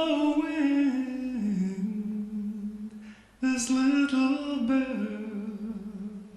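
A slow song: a single singing voice holds long, slowly gliding notes with no clear words. It breaks off briefly about three seconds in, then starts the next phrase.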